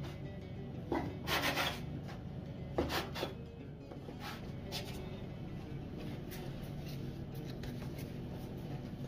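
Kitchen handling noises: a few short rubbing and knocking sounds about a second in and again about three seconds in, then fainter ticks, over a steady low hum.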